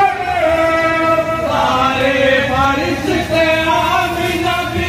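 A group of voices chanting a naat, a devotional song in praise of the Prophet, in long held notes that glide from one pitch to the next.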